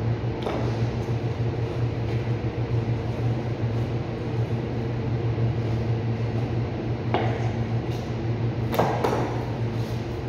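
Steady mechanical hum of an overhead cooling unit in a chilled butchery room. A few brief knocks and scrapes from a boning knife and meat on a plastic cutting board come about half a second in, around seven seconds and near nine seconds.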